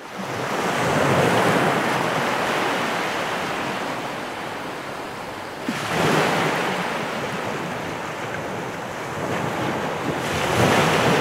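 Ocean surf: waves breaking and washing in, the rush swelling three times, about five seconds apart.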